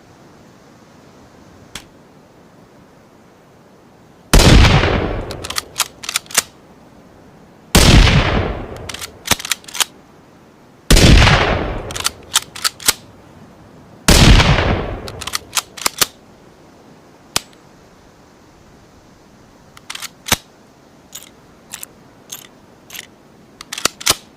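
Ruger American bolt-action rifle sound effect: four shots about three seconds apart, each ringing out in a fading echo. Each shot is followed by a quick run of sharp metallic clicks as the bolt is worked. A scatter of lighter clicks comes near the end.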